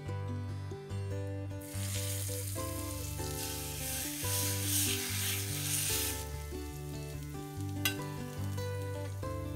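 Hot seasoning oil with mustard seeds sizzling as it is poured onto onion chutney. The hiss starts about one and a half seconds in and dies away after about six seconds, and a sharp clink of the spoon on the bowl follows near the end.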